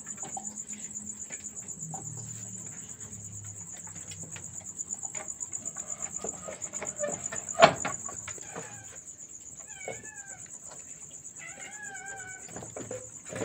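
Crickets chirping in a steady high trill, with scattered clicks and a sharp knock about halfway through. Near the end a cat meows several times.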